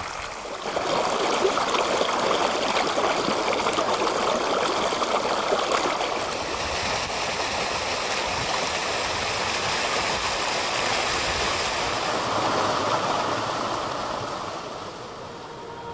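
Moorland headwater stream of the River Tees running and splashing over stones and small falls, a steady rush of water that fades away near the end.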